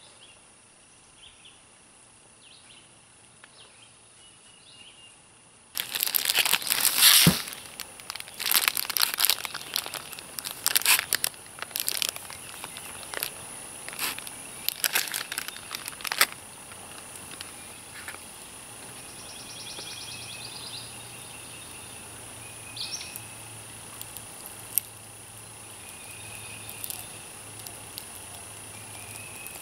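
Plastic bag crinkling and rustling in dense bursts for about ten seconds, starting about six seconds in, as raw chicken is handled onto a paper plate. Birds chirp faintly throughout.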